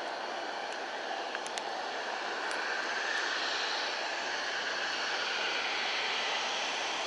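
Embraer E175 airliner's twin GE CF34 turbofan engines running at low thrust as the jet taxis and turns to line up: a steady jet whoosh that grows slowly louder.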